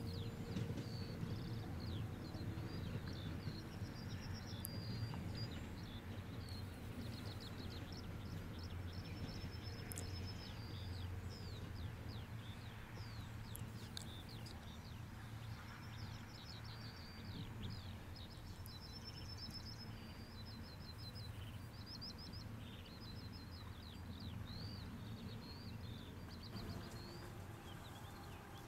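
Birds singing and chirping throughout, over a low rumble that slowly fades as an electric locomotive with its double-deck coaches moves away.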